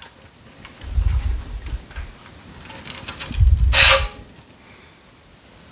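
Tennis string being woven by hand through the main strings of a racket: light ticks and plucks as it goes over and under, then, about three and a half seconds in, a short hissing zip as a length of cross string is drawn quickly through. Low rubbing rumbles come from handling noise around that pull and again about a second in.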